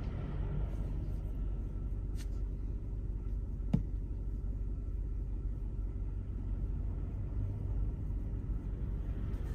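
Car's engine and tyres on a snow-covered road, heard from inside the cabin as a steady low rumble. A single sharp click about four seconds in.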